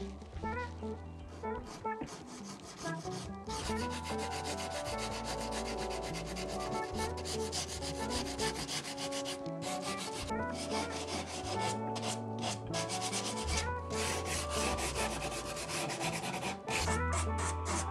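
Sanding sponge rubbed in quick back-and-forth strokes over the painted edges of a wooden washstand, wearing through the chalk paint to distress it, in runs with short pauses between. Background music with a steady bass plays underneath.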